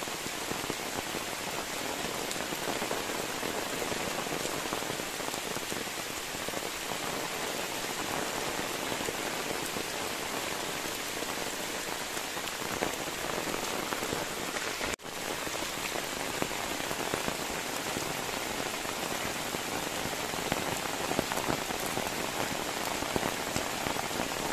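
Steady rain falling, an even patter, with a momentary break in the sound about fifteen seconds in.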